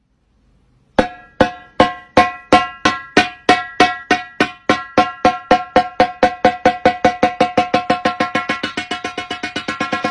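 One pitched percussion note struck over and over as the music of a reel. It starts about a second in at about two strikes a second and speeds up steadily into a fast roll.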